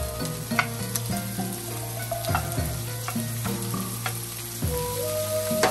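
Cubed raw beef steak sizzling and frying in hot oil in a wok as it is tipped in, with several sharp taps through the sizzle.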